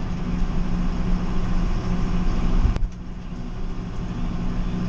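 Tractor engine running steadily while baling hay, with one sharp click a little over halfway through.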